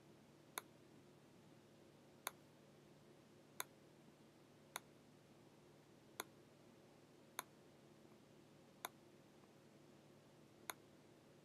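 Near silence with a faint steady hum, broken by eight sharp single clicks, about one every second and a half, from the computer input device used to write on the slide.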